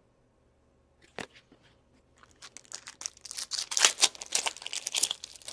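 Hockey card pack wrapper being torn open and crinkled: a single sharp tap about a second in, then irregular crackling and crinkling from about two seconds on.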